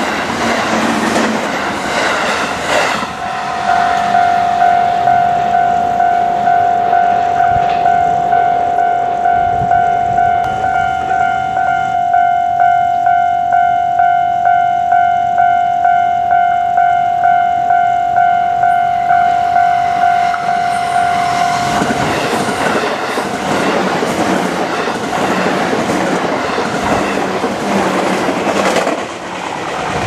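An electric train runs past a level crossing, then the crossing's electronic warning bell rings on a single steady tone, pulsing about one and a half times a second. About twenty seconds in the bell cuts off, and the rumble and clatter of another train passing takes over.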